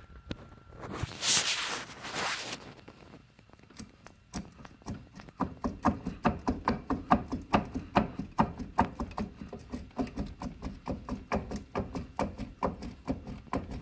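Rapid, evenly repeated knocking clunks, about four a second, from the worn wheel bearings and suspension bushings of a 2011 Polaris Sportsman 500 H.O. ATV. A short rushing noise comes before the knocking starts.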